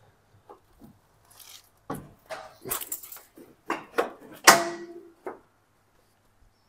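A hinged side cover panel on a Volvo FH truck being handled and shut: a string of knocks and clacks, the loudest about four and a half seconds in with a brief ring.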